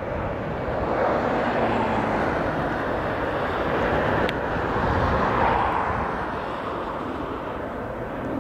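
Boeing 747-400 freighter's four turbofan engines on landing, a steady jet roar that swells about halfway through and eases off near the end as the airliner reaches the runway.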